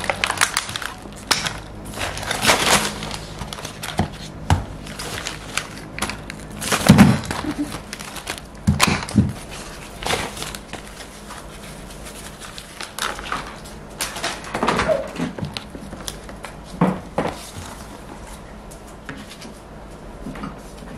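Groceries being unpacked from a reusable shopping bag onto a counter: the bag and plastic packaging rustle and crinkle, with scattered dull knocks as items such as a plastic egg carton and plastic bottles are set down. The loudest knock comes about a third of the way in.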